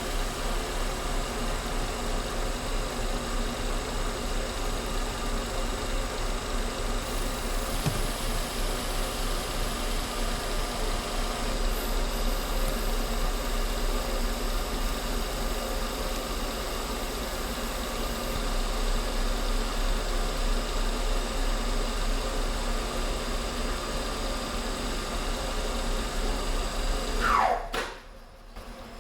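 Schaublin 102 lathe running steadily while turning down a copper dial blank, a constant motor hum with steady whining tones. Near the end the motor is switched off and its whine falls away as it spins down.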